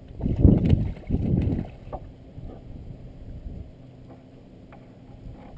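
Wind buffeting the microphone in two strong gusts over the first two seconds, then dying down to a low, quieter rumble with a faint click or two.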